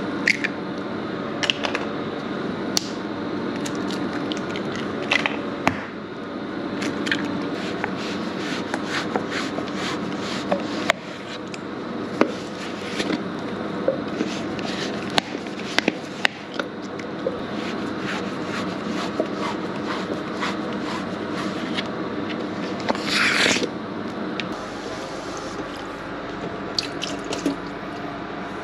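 Hen's eggs cracked one after another by hand into a well of flour, shells clicking and snapping, then thick Greek yogurt squelching out of a tub. A steady machinery hum runs underneath, and a short hiss comes near the end.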